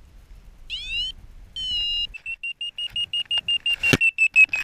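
Paragliding variometer sounding its climb alarm: a rising chirp, a short held tone, then fast even beeps at about six a second, the vario's signal of climbing in a thermal. A single sharp knock about four seconds in.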